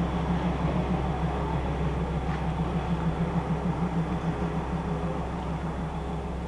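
Diesel railcar's engine running with a steady low drone.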